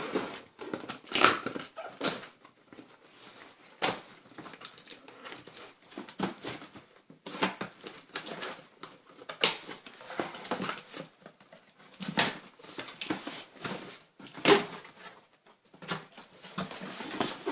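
Sneaker box and wrapping paper being handled, with irregular rustling, crinkling and light knocks of cardboard.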